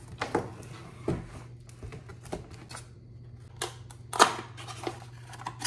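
Cardboard packing inserts and foam being handled and pulled out of a printer's shipping box: irregular knocks, taps and scrapes, the loudest a little past four seconds in.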